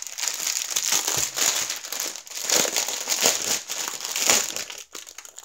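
Plastic packaging crinkling as a plastic-wrapped bundle of small bags of diamond-painting drills is handled and turned over in the hands. The crinkling is continuous and crackly.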